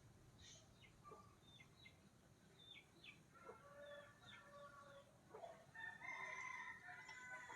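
Birds calling: two drawn-out calls with several layered tones, one a few seconds in and one near the end, among many short high chirps that fall in pitch, over a faint steady hiss.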